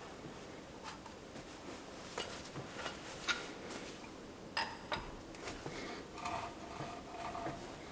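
Faint clinks and knocks of steel parts being handled on a machine table, as a large steel disc with a centre bearing is set over a round steel post. Near the end comes a scraping metal-on-metal rub with a faint ring.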